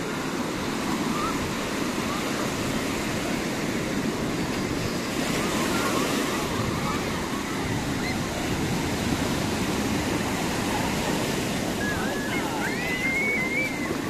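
Small waves breaking and washing up on a sandy shore, a steady surf hiss that swells about six seconds in. People's voices carry over it, with a high voice calling out near the end.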